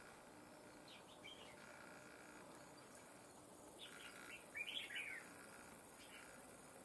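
Red-whiskered bulbuls giving short, faint chirping calls: a couple about a second in, then a louder run of calls around four to five seconds in.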